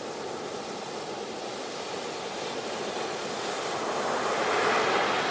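Sea waves washing in, a steady hiss of surf that swells louder about four seconds in.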